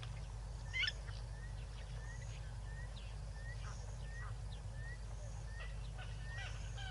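Waterhole wildlife sounds: a short rising chirp repeated about twice a second, scattered brief high calls, and one louder, short upward-sweeping call about a second in, over a steady low hum.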